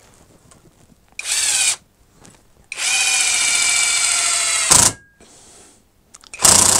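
Metabo SSD 18 LT 200 BL 18 V brushless cordless impact driver, set to its lowest setting, driving a long screw into a block of wood in three trigger pulls: a short burst, a run of about two seconds that ends in a knock, then a third run near the end.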